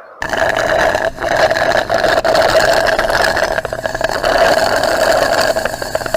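Tubby Custard machine running: a loud, steady mechanical whir with a rattling clatter, starting abruptly.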